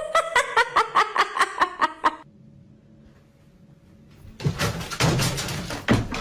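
A person laughing in quick, rhythmic 'ha-ha-ha' bursts, about five a second, for about two seconds. This stops suddenly, and after a short lull a stretch of noisy, irregular sound follows.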